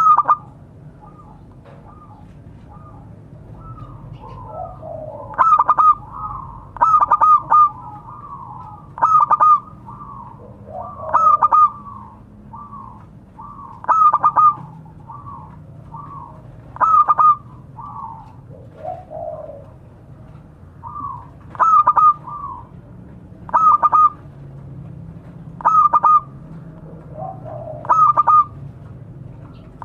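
Zebra doves (perkutut) cooing: loud bursts of quick, stuttering coos repeat every one to three seconds, with softer coos in between.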